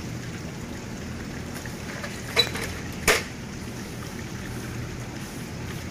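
Two short clacks of a plastic seedling plug tray being handled on the table, the second the louder, over a steady low hum.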